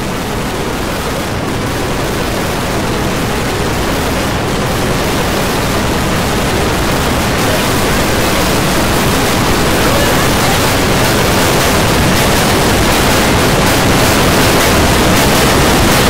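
Dozens of video soundtracks layered on top of each other, merging into a dense, even rushing noise with no single sound standing out. It grows steadily louder.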